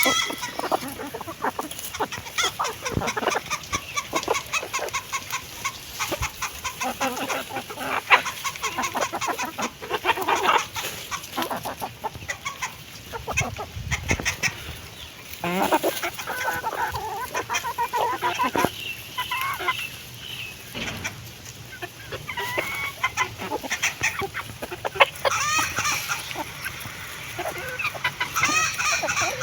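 Hens clucking and calling over and over, with many quick sharp taps of beaks pecking at food.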